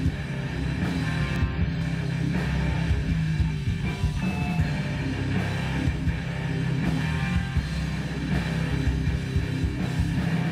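Loud rock music with guitar and drums, steady throughout.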